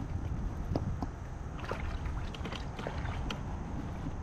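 Plastic sit-on-top fishing kayak at rest on calm water, its hull and gear giving scattered light clicks and taps over a steady low rumble.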